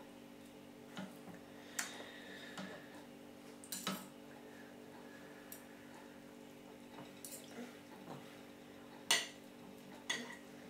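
Baby spoon clinking and scraping against a plate as food is scooped up: scattered short taps and clinks, a few with a brief ring, the loudest near the end, over a faint steady hum.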